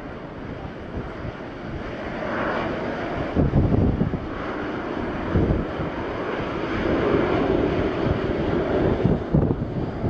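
Boeing 737-900's twin CFM56 jet engines running at takeoff power through the takeoff roll and climb-out, a steady jet roar. Wind gusts buffet the microphone several times.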